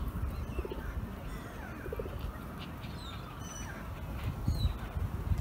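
Gulls calling on a lake, two short cries about half a second and two seconds in, among scattered thin high chirps of other birds, over an uneven low rumble.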